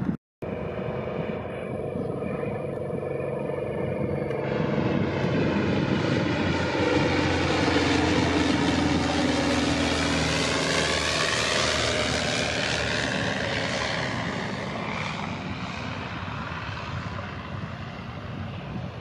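Nanchang PT-6 trainer's nine-cylinder radial engine and propeller passing low on landing approach. The drone builds to its loudest about halfway, shifts down in pitch as the plane goes by, and fades as it settles onto the runway.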